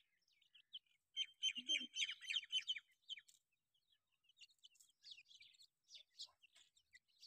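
Grey francolins (teetar) chirping: a fast run of high chirps about a second in, then scattered softer chirps.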